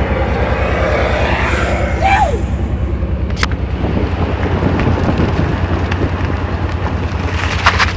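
Rushing wind buffeting the microphone over rumbling road noise while moving fast down a paved road, a loud, evenly pulsing low rumble.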